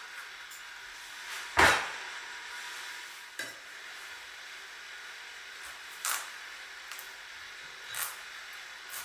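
Kitchen handling sounds: one loud knock of cookware set down about a second and a half in, then a few lighter knocks and clinks, over a steady hiss.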